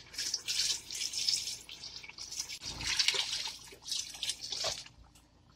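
Hot meat stock (yakhni) being poured in a stream into a metal pot of fried beef and masala, splashing unevenly as it lands, with a dull bump about three seconds in.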